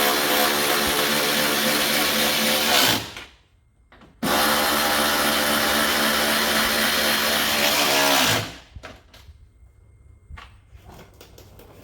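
A cordless power tool runs the side step's nuts onto the truck's studs in two steady bursts. The first stops about three seconds in, and the second runs for about four seconds after a short pause; each winds down as the trigger is released. Faint clicks and handling sounds follow.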